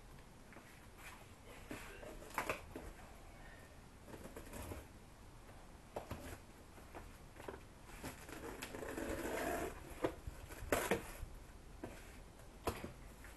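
Cardboard boxes being handled and shifted on a paved floor: scattered knocks and thumps, with a longer scraping stretch around eight to ten seconds in.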